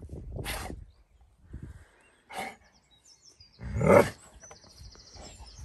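Alaskan malamute making a few short, rough grumbling vocal sounds at sheep through a fence, the loudest and longest about four seconds in.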